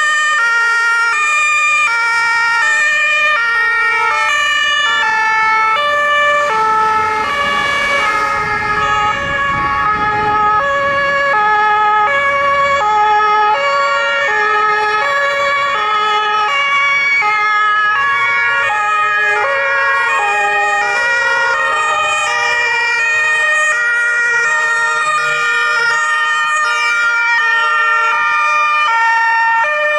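Several German two-tone sirens (Martinshorn) on fire engines and Red Cross ambulances sound together, each alternating between its two notes out of step with the others. A rush of engine and road noise rises and fades around eight to eleven seconds in.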